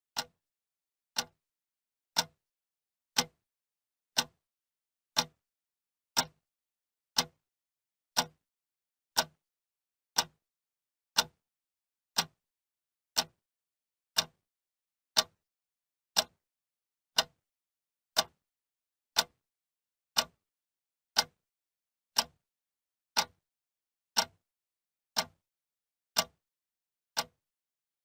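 Sharp ticks repeating evenly, one a second, with silence in between.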